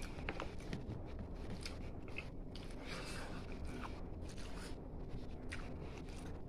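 Close-up eating sounds of a person chewing and biting into braised pork head adobo, with scattered short mouth clicks and smacks.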